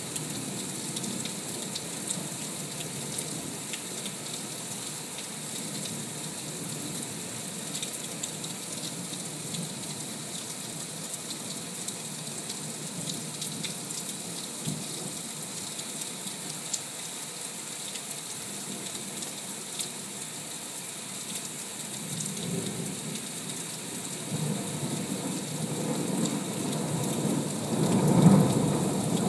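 Heavy rain falling steadily, with scattered drops ticking. In the last third, thunder rolls in as a low rumble that swells and is loudest just before the end.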